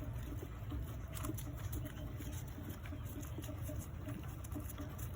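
Light rain pattering steadily, over a low steady rumble.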